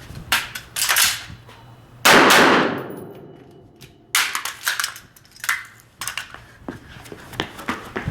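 A single AR-15-style carbine shot about two seconds in, with a long echo that fades over about a second. Before and after it come sharp metallic clicks and knocks as the rifle is handled and its malfunction is cleared.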